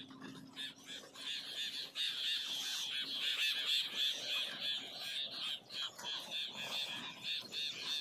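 A chorus of small birds chirping and chattering continuously, many rapid overlapping calls with no pause.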